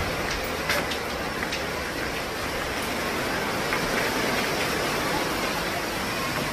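Steady rushing noise of wind on the open seaside tower, with a few faint clicks in the first couple of seconds.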